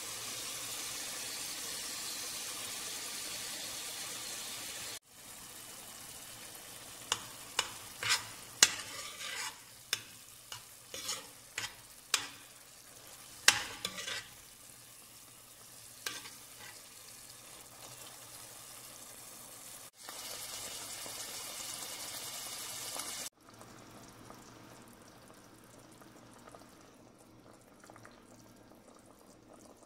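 Ground beef and onion sizzling in a stainless steel frying pan, with a run of sharp knocks and scrapes from a utensil stirring tomato paste into the meat about a third of the way through. Near the end the sizzle gives way to a quieter simmer of the tomato sauce.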